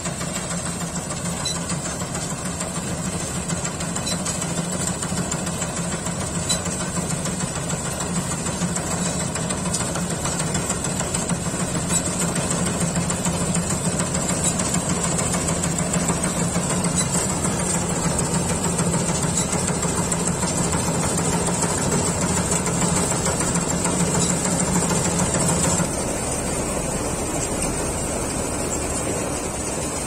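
Dasmesh 912 combine harvester running steadily under load while cutting and threshing rice: a continuous diesel engine drone mixed with the clatter of the machinery and a steady high-pitched whine. Near the end the sound shifts abruptly and the low drone weakens.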